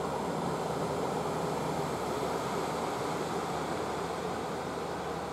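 Steady outdoor seaside noise of wind and sea water, an even hiss that eases slightly toward the end.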